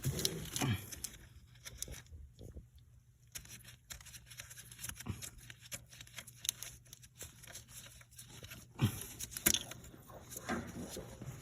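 Scattered clicks and scrapes of hand tools working loose the 16 mm fitting on a power steering high-pressure hose, over a low steady hum.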